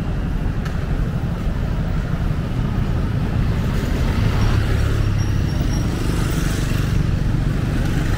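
City street traffic: cars and motorcycles running by with a steady rumble, one vehicle passing closer about halfway through.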